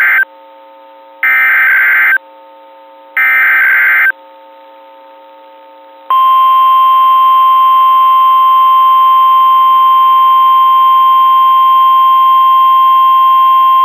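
NOAA Weather Radio SAME alert header: the tail of one burst of digital data tones, then two more bursts about a second long and a second apart. About six seconds in, the steady 1050 Hz weather radio warning alarm tone starts and holds without a break, signalling the start of an alert, here a required weekly test.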